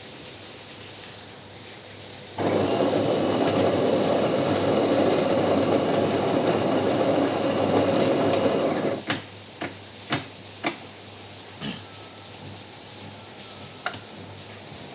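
Saeco Aulika bean-to-cup coffee machine starting a drink cycle after a single button press: a steady motor run with a high whine for about six seconds that cuts off suddenly, then several sharp clicks and knocks from the machine.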